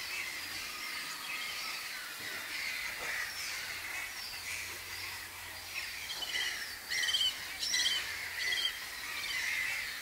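Several wild birds calling and singing in overlapping short chirps, with a run of louder, sharper calls about seven to eight and a half seconds in.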